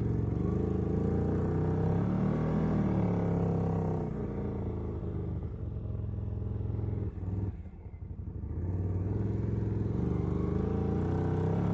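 CFmoto ATV engine running under way, its note rising and falling with the throttle. It drops away briefly about seven seconds in, then picks up again.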